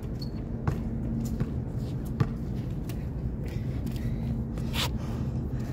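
A basketball bouncing a few separate times on a hard outdoor court, each bounce a short knock, over a steady low hum.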